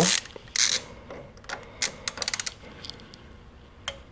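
Handling of metal hand tools: scattered clicks and a clink, with a quick run of about six ratchet clicks around the middle, as a torque wrench is readied for the first 5 lb round on the Lambretta gearbox endplate nuts.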